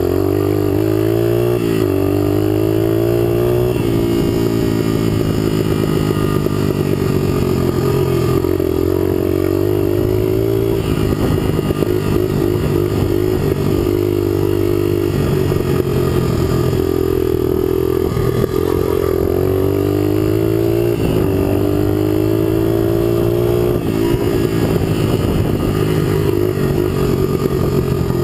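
Dual-sport motorcycle engine running under way on a dirt track, heard from the rider's own bike, its revs climbing and dropping back several times.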